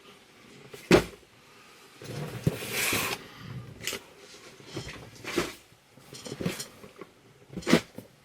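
Cardboard boxes and packaged items being handled: several sharp knocks and thuds, the loudest near the end, with a stretch of rustling in between.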